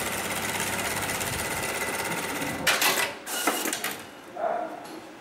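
Programmable electronic pattern sewing machine stitching fast and steadily, then stopping a little under three seconds in with a few short, loud sharp noises as the cycle ends.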